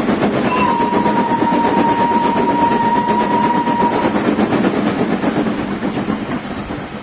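A train running at speed with a dense, rapid clatter, its whistle sounding one steady note from about half a second in until about four seconds in.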